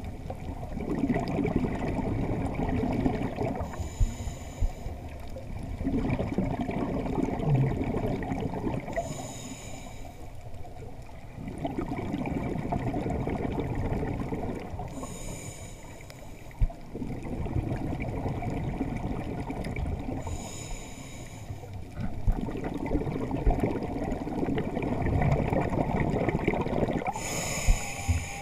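A scuba diver breathing through a regulator underwater: regular breaths about every five to six seconds, each with a short high hiss, between longer stretches of muffled bubbling rumble.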